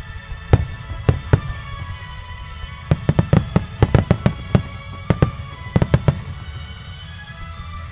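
Starmine fireworks shells bursting with sharp bangs over background music. A few single booms come in the first second and a half, then a rapid string of bangs from about three to four and a half seconds in, and a few more near six seconds.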